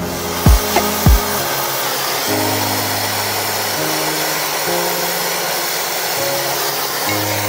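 Gas torch flame hissing steadily as it heats the edge of a truck radiator, over background music with slow held bass notes; two thumps in the music about half a second and a second in.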